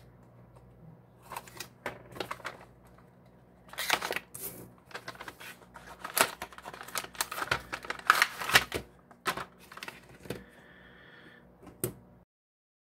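A cardboard paint-set box being opened and handled, and plastic dropper bottles of Vallejo paint clicking and knocking together as they are lifted from their tray and set into a 3D-printed plastic rack. The clicks and rustles are irregular and cut off abruptly near the end.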